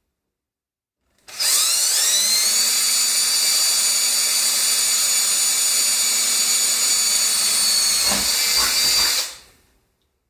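Cordless drill spinning up about a second in with a rising whine, then running steadily as it bores through the sheet-metal case panel, and stopping near the end.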